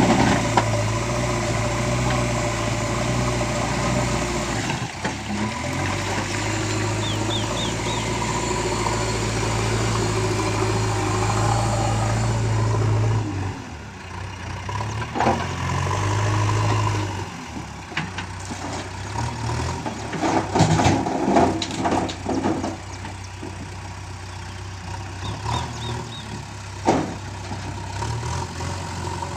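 Diesel engine of a JCB backhoe loader running steadily, falling quieter about halfway through, with scattered knocks and clatter from the machine at work.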